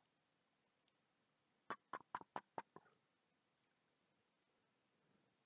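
A quick run of about six computer keyboard keystrokes a couple of seconds in, otherwise near silence with a few faint ticks.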